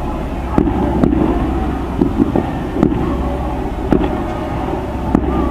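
Steady low rumble of a running vehicle engine, with a handful of light sharp clicks scattered through it.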